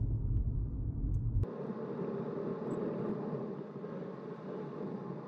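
Low, steady road and engine rumble inside a moving car's cabin. About a second and a half in it cuts off abruptly, and a softer, hissy noise without the low rumble takes over and slowly fades.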